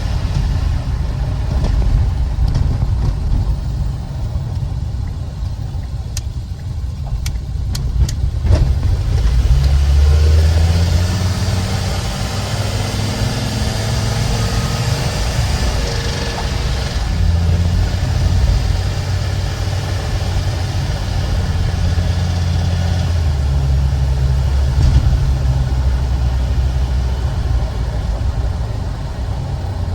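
Ford 6.8L V10 gasoline engine running, its low drone shifting in level several times; a few sharp clicks about six to eight seconds in.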